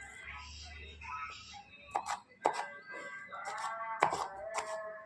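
Background music with held melodic notes, broken by a few sharp clicks or knocks about two, two and a half, and four seconds in.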